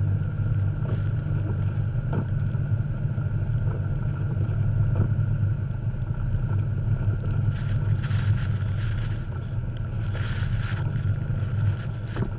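A 1989 Jeep Cherokee XJ's engine runs steadily as a low rumble while the Jeep drives through deep snow. Two stretches of hiss come in, about eight and ten seconds in.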